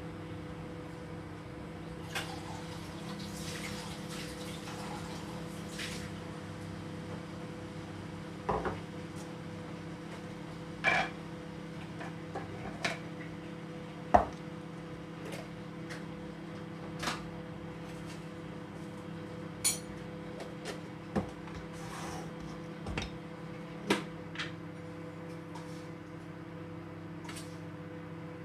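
Microwave oven running with a steady hum while reheating leftover rice, with a dozen or so light clinks and knocks of dishes and cutlery scattered through it.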